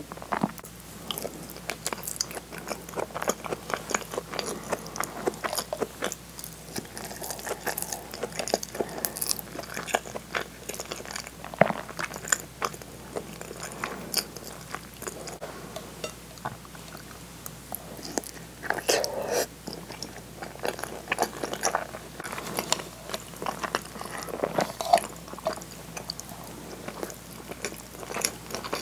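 Close-miked human chewing of soft food, a mouthful of potato salad: a continuous, irregular run of wet mouth sounds and small sharp clicks.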